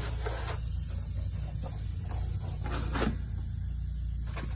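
Steady low electrical mains hum, with a few brief soft rustling or handling noises.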